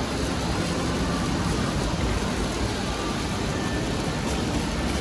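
Indoor fountain jet splashing into its pool, a steady watery hiss.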